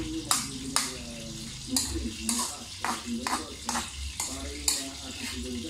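Metal spoon scraping and clinking against a frying pan in repeated irregular strokes, stirring a sauté of tomatoes and ground meat that sizzles underneath.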